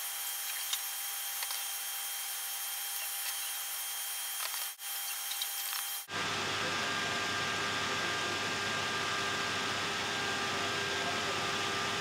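Steady hiss of room and recording noise with a few faint clicks of small plastic pieces being handled. About six seconds in, the sound drops out for an instant and comes back louder and fuller, like a cut in the recording.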